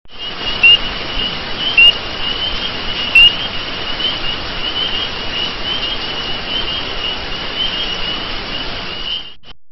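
Rainforest ambience: a dense, steady chirping over a hiss, with three short loud calls in the first few seconds. It cuts off suddenly near the end.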